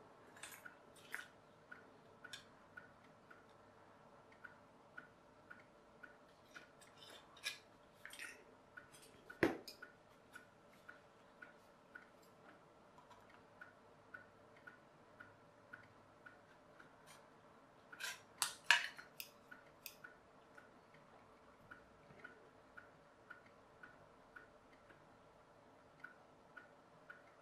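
Tin snips cutting thin tinplate: a few sharp snips and metal clicks, the loudest about nine and a half seconds in and a cluster of them around eighteen seconds. Under them runs a steady faint ticking, about two ticks a second.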